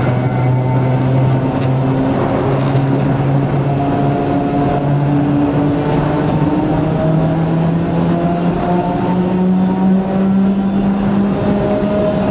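Nose-suspended (tsurikake) traction motors of an electric train whining under power. The pitch climbs as the train gathers speed, then holds steady near the end.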